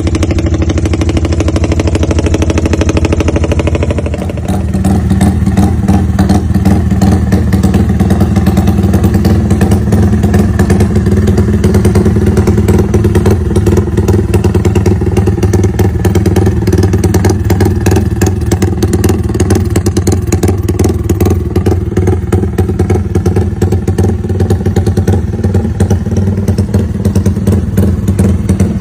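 Yamaha Y15ZR (MX King) 150cc single-cylinder motorcycle on an aftermarket exhaust, running at a steady rumbling idle with a rapid even pulse. The sound shifts abruptly about four seconds in, then settles.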